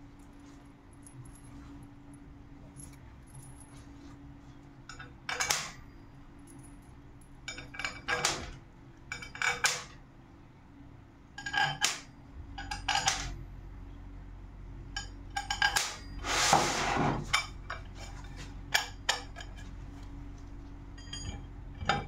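Aluminium centrifuge mold plates and their metal pins being handled: a string of sharp metallic clinks and knocks, about a dozen of them, one lasting over a second about two-thirds of the way through.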